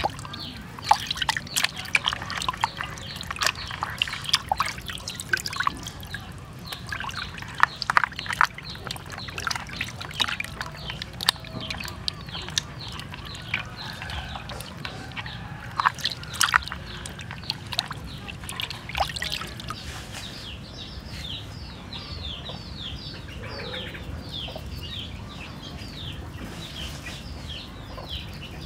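Water splashing and sloshing in a plastic basin as hands wash pieces of catfish, with sharp slaps and drips. After about twenty seconds the splashing stops and a bird chirps in a quick repeated series.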